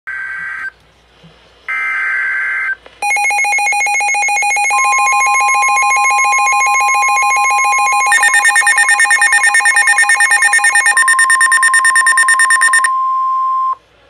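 NOAA weather radios receiving an EAS severe thunderstorm warning: two short buzzy bursts of the SAME data header, then the radios' rapid alert beeping with the steady 1050 Hz warning alarm tone joining about 5 s in. A second radio's beeping joins about 8 s in, and the beeping stops about a second before the tone ends.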